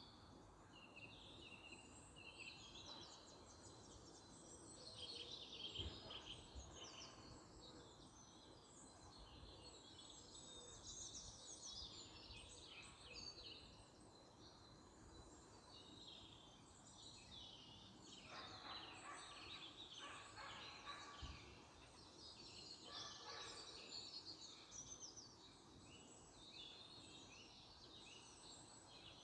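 Faint spring birdsong: several small birds chirping and singing in overlapping phrases over a low, steady background hum.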